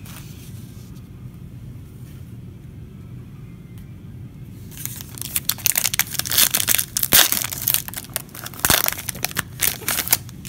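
Foil trading-card pack crinkling and tearing open: a burst of loud, dense crackling that starts about five seconds in and lasts about five seconds. Before it there is only a low steady room hum.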